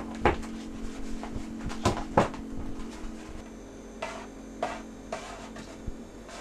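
Fingertip taps on leather stretched tight over a shamisen body in a ring of clamps, a handful of irregular short knocks: the craftsman is checking the subtle tension of the skin.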